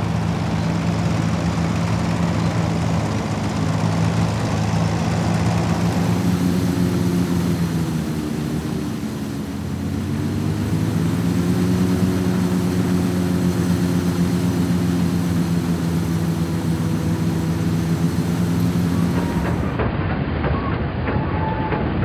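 Fordson Super Dexta's three-cylinder diesel engine running steadily under load while it drives a JF MS5 side-mounted combine harvester, with the combine's threshing machinery rattling along with it. About halfway through the engine's pitch sags briefly and then comes back up.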